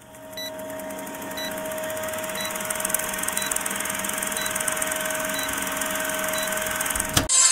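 Film projector running with a steady whirring clatter, a short high beep once a second as the countdown leader ticks down. It fades in at the start and cuts off with a sharp click near the end.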